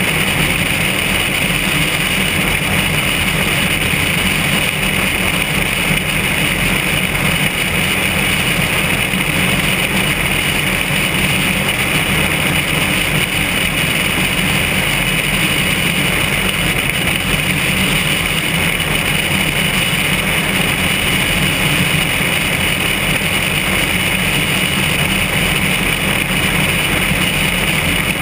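Steady drone of a single-engine, high-wing light aircraft in flight: engine and propeller noise mixed with airflow over a camera mounted outside under the wing.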